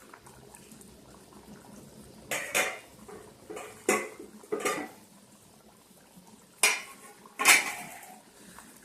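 A metal spoon clinking and scraping against a cooking pot of chicken curry: about six sharp strikes at uneven intervals, the loudest two near the end.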